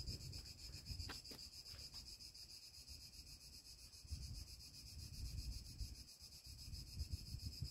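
Faint, steady chirring of insects in dry summer grass: a high buzz with a fast, even pulsing. Under it, soft irregular low rumbling comes and goes, strongest near the start and again near the end.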